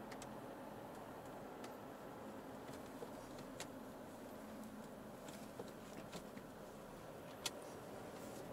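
Quiet, steady drone of an Alfa Romeo 159's 1.9 JTDM four-cylinder turbodiesel and road noise, heard inside the cabin while driving. Scattered light ticks and clicks come through, the sharpest about seven and a half seconds in.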